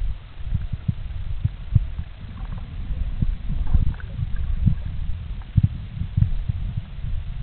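Muffled underwater sound picked up by a submerged camera: irregular low thumps and rumbling of water moving against it, several a second, with a few faint crackles around the middle.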